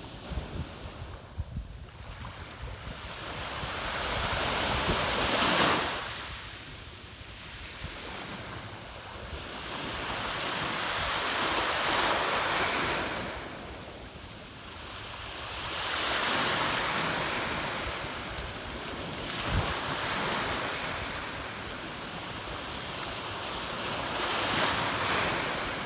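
Small waves breaking and washing up over a shell-strewn beach, the surf swelling and fading about five times, one every four to six seconds. Wind buffets the microphone with low rumbles, most in the first few seconds.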